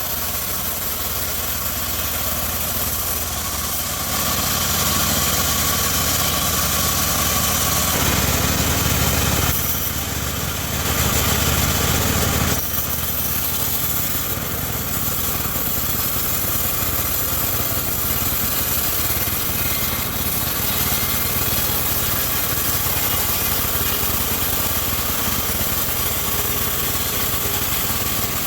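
Homemade band sawmill running with a steady machine drone. It grows louder about four seconds in and again for a couple of seconds around ten to twelve seconds, then settles back to a steady level.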